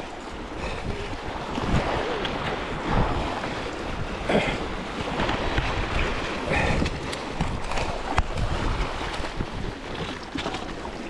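Wind buffeting the microphone over small waves washing and splashing against shoreline rocks, with a few sharper splashes.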